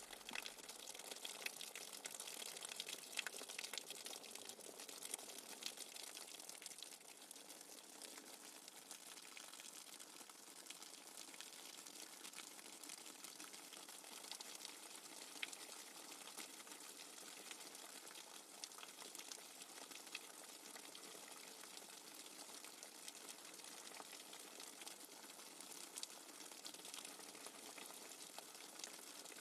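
Faint, steady fizzing hiss with scattered crackles and ticks.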